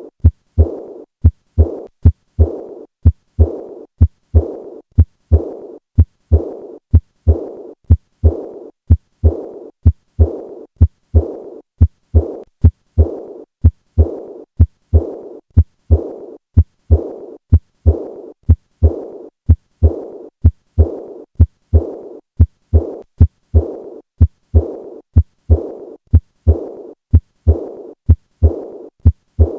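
Heart sounds of acute aortic regurgitation heard at the fourth left intercostal space: a steady beat about once a second. Each beat has short low thuds followed by a brief fading murmur, the leaking aortic valve's diastolic murmur.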